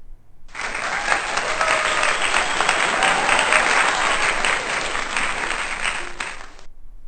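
Crowd applause with some cheering, a sound effect edited in: it starts suddenly about half a second in and cuts off abruptly near the end.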